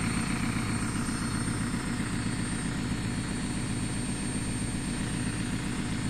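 Whirlpool top-loading washing machine running with a steady low rumble and a fine, rapid flutter.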